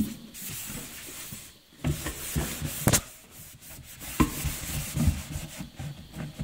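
A cloth rubbing hard over a stainless steel sink basin, wiping off stainless steel polish: a continuous scratchy rubbing with a few sharp knocks.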